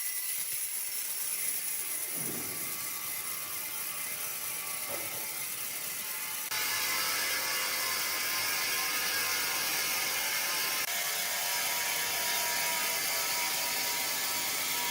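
Wood-processing machinery running: a steady high whir and clatter. The sound changes abruptly and gets louder about six and a half seconds in.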